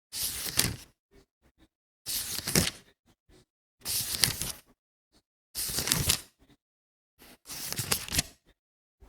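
Paper pages of a book being turned one at a time: five separate crisp rustling flips, each under a second and about every two seconds, each ending in a sharper crackle as the page falls over.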